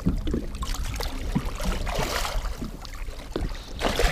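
Water splashing and sloshing at the side of a boat as a landed muskie is handled in the landing net, over a low wind rumble on the microphone.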